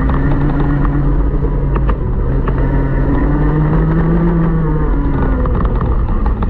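A 125cc two-stroke TaG kart engine heard from its own onboard camera, running hard: its pitch climbs steadily along a straight, then drops about five seconds in as the kart slows for the next corner.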